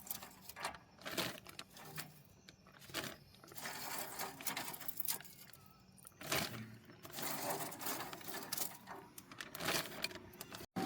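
Irregular clicks, taps and light rattles of crispy smoked chicken wingtips being handled and lifted off a smoker rack.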